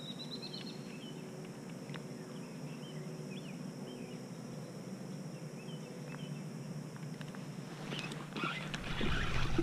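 Quiet outdoor pond-side ambience with faint scattered bird chirps over a steady background hiss. About eight seconds in, louder rustling and clicks as the rod and reel are handled close to the microphone.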